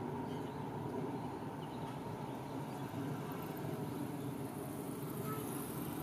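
Steady low hum of distant road traffic and city background noise, with no distinct events.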